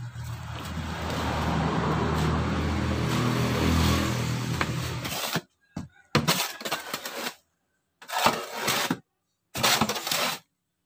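A motor vehicle's engine running steadily, growing louder over the first two seconds and cutting off abruptly about five seconds in. Then come short spells of noise from soil and manure sliding out of a tipped steel wheelbarrow, with dead-silent gaps between them.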